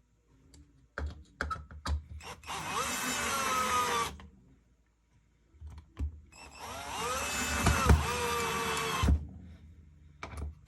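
Power drill driving screws in two runs, one of about a second and a half and one of about three seconds. Each time the motor whine climbs as it spins up, then holds and sags a little under load. A few light handling clicks come before the first run.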